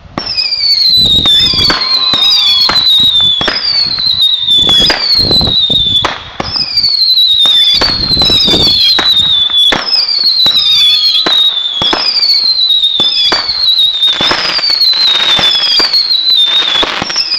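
Fireworks firing in quick succession: about one high whistle a second, each falling in pitch as a shot climbs, over sharp bangs and pops from the bursts.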